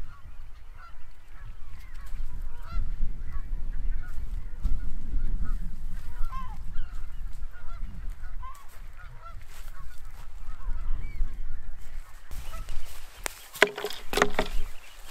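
A flock of geese honking throughout, many short calls overlapping, with wind buffeting the microphone. Near the end, a short burst of knocks.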